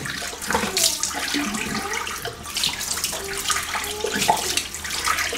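Tap water running and splashing, with irregular splashes as a freshly shaved head is rinsed under it.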